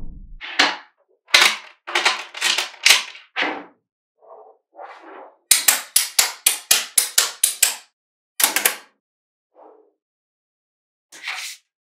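Blocks of small magnetic balls clicking and clacking as they snap together and are set down. The sharp clicks come singly and in short groups, with a quick run of about ten clicks near the middle.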